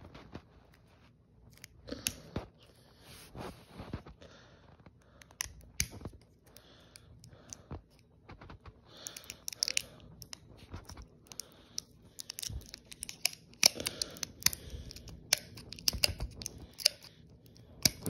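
Stiff plastic battery packaging crinkling, clicking and snapping as it is pried and pulled at by hand, in irregular spells that get busier about halfway through. The packaging is resisting being opened.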